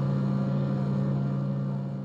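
Steady drone of a jet airliner's cabin in flight: a low engine hum with a constant hiss of air, beginning to fade out near the end.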